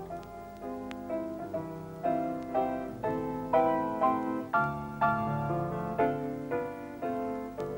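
Background piano music: a slow, even run of notes struck about twice a second, each ringing briefly before the next.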